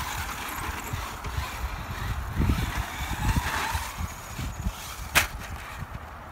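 Radio-controlled car's motor whining, its pitch rising and falling near the middle, over low buffeting on the microphone. One sharp knock about five seconds in.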